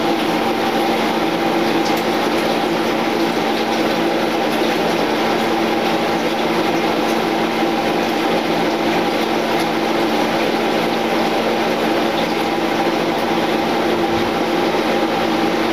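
Steady whir of a kitchen fan with a constant low hum running through it, unchanging throughout.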